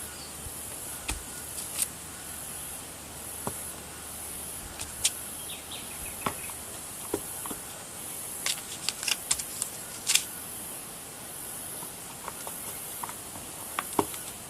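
Scattered light taps and clicks of a rubber stamp being dabbed on an ink pad and pressed onto paper, with a quick run of taps about two-thirds of the way through. A faint high hiss comes and goes behind them.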